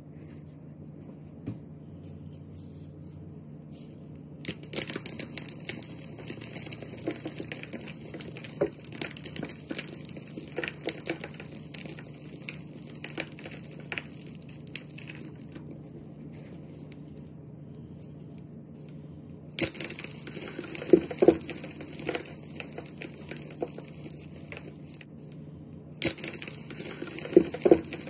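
Hands crushing and crumbling blocks of reformed gym chalk into loose powder, a dry crackly crunching. It begins about four seconds in and comes in three spells with short pauses between them.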